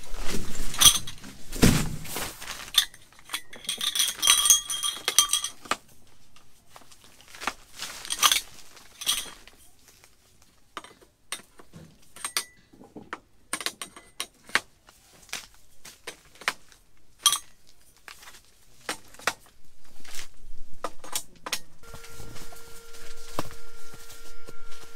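Metal legs and poles of a folding camp cot being fitted and snapped together: an irregular run of clicks, clinks and knocks.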